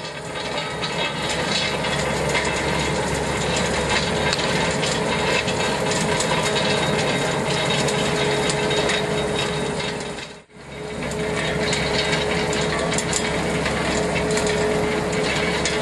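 Skid steer loader working a Harley box rake: the rake's toothed rotating drum grinds and scrapes through loose dirt and stones, a steady rasping noise over the machine's engine. The sound drops out for a moment about ten seconds in, then carries on.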